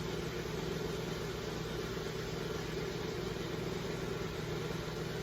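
LiftMaster screw-drive garage door opener motor running steadily on a test run, turning the screw rail through its newly replaced motor coupler.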